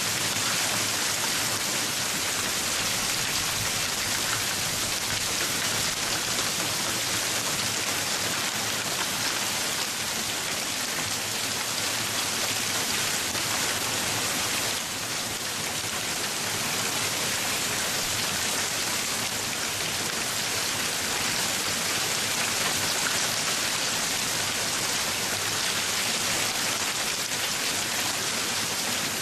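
Hail pelting down steadily, a dense, even patter of countless small impacts on the ground.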